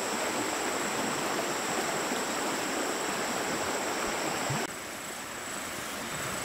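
Steady rushing of running water, like a nearby stream, with a thin, steady high whine above it. Both drop suddenly to a quieter level about two-thirds of the way through.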